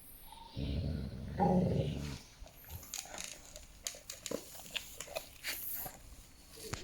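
A dog vocalizing: one low sound starting about half a second in and lasting about a second and a half, followed by scattered small clicks and taps.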